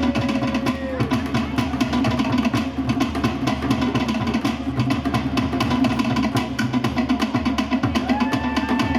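Tahitian dance drumming: a rapid, driving beat on wooden slit drums with other percussion, played without a break.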